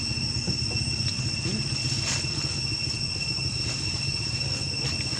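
Steady background noise: a low rumble with a constant high-pitched whine over it and a few faint clicks.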